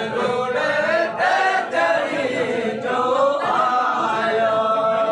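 Voices singing or chanting together in a continuous melody, with one note held for about a second and a half near the end.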